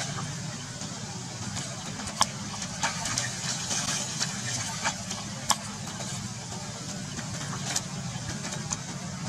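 Macaques splashing and running through a shallow puddle, with a burst of splashing about four seconds in and scattered sharp clicks and knocks, over a steady low hum.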